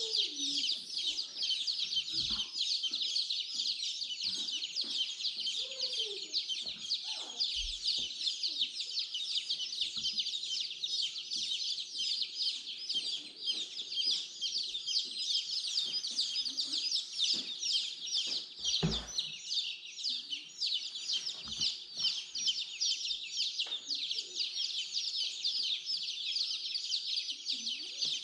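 A brood of young chicks peeping constantly, many high chirps overlapping into a continuous chatter. A few dull knocks from handling come through about two, eight and nineteen seconds in.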